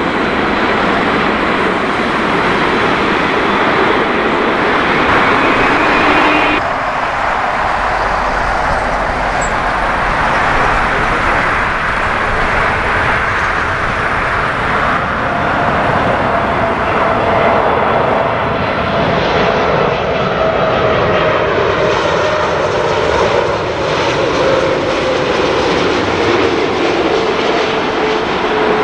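Jet engines of landing cargo airliners: first an Airbus A330 freighter at touchdown, then, after an abrupt change about six seconds in, a Boeing 747-8 freighter on final approach with its four GEnx engines, a steady rush with a whine that slides slowly lower in pitch as it passes.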